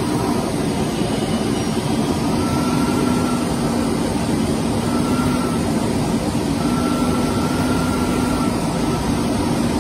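Steady in-flight engine noise of a Snowbirds CT-114 Tutor's turbojet, heard on board, with a strong low hum and a faint higher tone that comes and goes.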